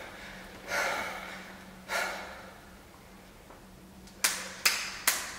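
Beatboxing in a small room: two breathy puffs about a second apart, then near the end a quick run of sharp clicks keeping a beat at about three a second.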